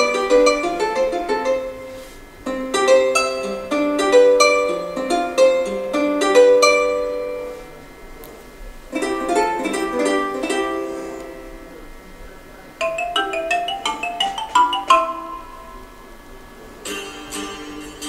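Asus ROG Phone 2 built-in ringtones previewed one after another: plucked-guitar melodies, then a brighter marimba tune, then another tune. Each is cut off when the next starts, with a change about four times.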